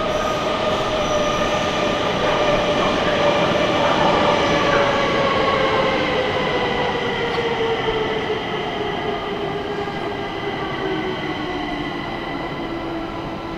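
Stockholm metro train slowing down: its motor whine falls steadily in pitch over the rumble of the wheels, growing gradually quieter in the second half.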